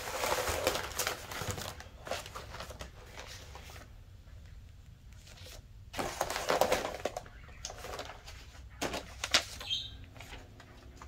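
Paper and plastic mailer packaging rustling and crinkling as it is handled: a kraft-paper envelope and plastic poly mailer bags being slid out and pushed aside. The rustling is strongest in the first two seconds, comes again about six seconds in, and a few short crackles follow near the end.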